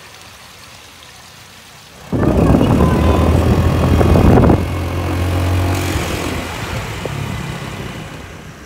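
A small stream trickles faintly, then about two seconds in a motor scooter ride cuts in: wind rushes over the microphone with the scooter's small engine running beneath. The wind and engine sound is loudest for the first couple of seconds, then slowly eases off.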